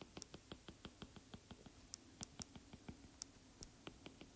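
Faint, quick clicks of a stylus tapping a drawing tablet, about five or six a second and unevenly spaced, as a dashed line is drawn one short stroke at a time.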